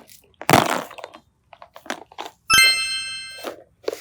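A sharp crack or crunch about half a second in. About two and a half seconds in, a bright bell-like chime strikes and rings down over about a second.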